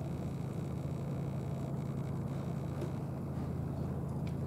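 Steady low rumble with no breaks, with a faint tick near the end.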